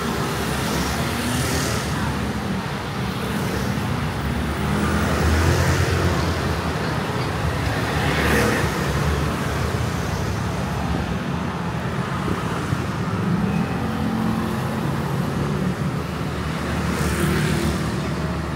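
Street traffic made up mostly of motor scooters, engines running as they ride past one after another, with several louder pass-bys spread through.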